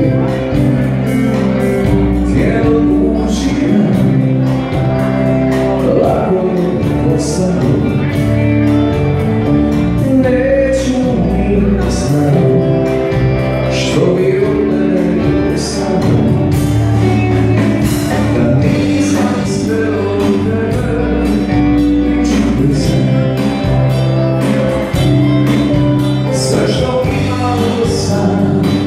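Live music: a male singer sings into a microphone over instrumental backing with held chords and a steady beat.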